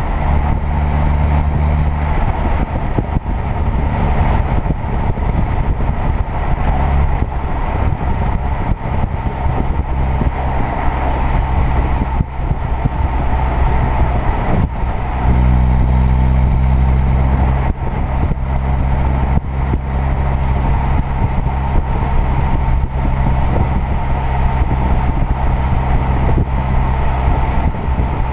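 A car's 2.0 TFSI turbocharged four-cylinder engine running at a fairly constant speed while driving, with road noise. About halfway through the engine note steps up and gets louder, then holds steady again.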